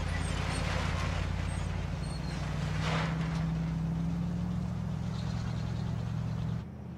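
A car engine runs with a steady low drone, heard from inside the cabin as the car drives slowly. A brief rushing sound comes about three seconds in, and the sound changes abruptly near the end.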